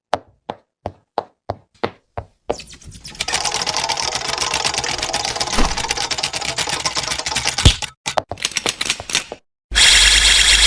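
Mechanical clicking: single sharp clicks about three a second, then a fast dense run of clicks, ending in a short loud burst of noise near the end.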